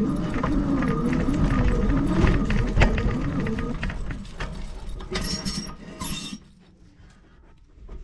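Lectric XP 3.0 e-bike riding over a rough trail: frame and gear rattling, with a whine that rises and falls. About five seconds in come two short high squeals from the brakes, and the bike stops, leaving it fairly quiet.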